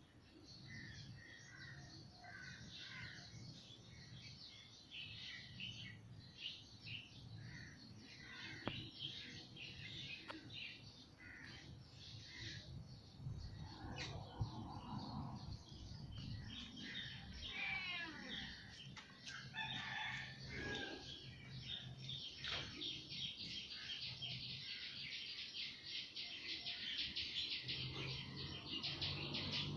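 Birds chirping and calling at irregular intervals, with a few longer gliding calls.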